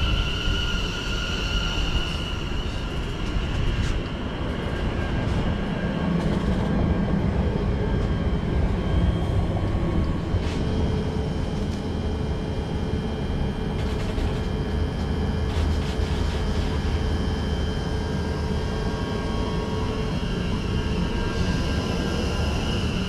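West Midlands Railway electric multiple unit moving along the platform: a steady rumble of wheels on rail with a high, steady electric whine. A lower steady hum joins in about halfway through.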